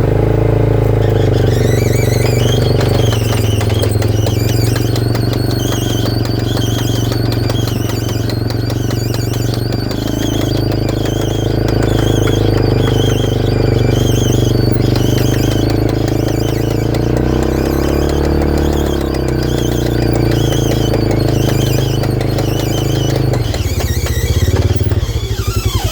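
Polaris RZR 570 driving, its engine running steadily while a high squeal from the left-rear driveline pulses about once a second. The owner first took it for a bad left-rear axle but is now unsure and suspects a worn wheel bearing or bearing carrier.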